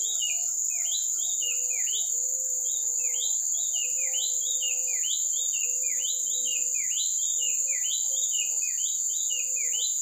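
White-chested babbler (pelanduk dada putih) singing without pause: a quick run of clear whistled notes, each sliding down in pitch, about two to three a second. A steady high insect drone runs underneath.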